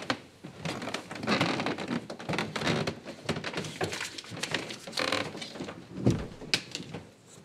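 Small knocks and clicks of movement, with a door thudding shut about six seconds in.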